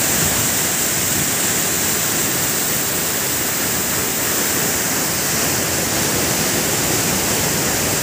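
Waterfall at close range, pouring into its plunge pool: a steady, loud rush of falling water.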